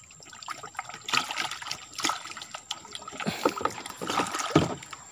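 Water sloshing and splashing as a wire-mesh fish trap is hauled out of a shallow stream, with water draining off it in irregular splashes.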